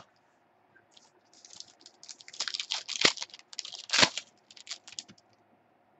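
A foil trading-card pack wrapper crinkling and crackling as it is torn open and handled. A quick run of sharp crackles, loudest around three to four seconds in.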